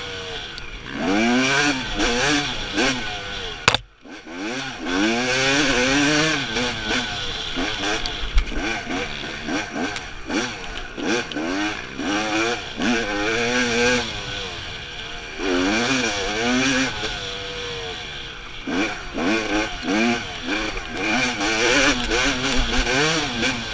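Dirt bike engine revving up and down again and again as it rides a rough trail, pitch rising with each burst of throttle and falling as it eases off. About four seconds in there is a sharp knock and the engine briefly falls nearly silent before picking up again.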